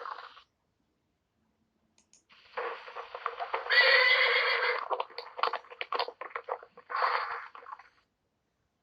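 Horse whinnying: one long call, loudest a second or so in, then breaking into a quick fluttering stutter and ending with a short final burst.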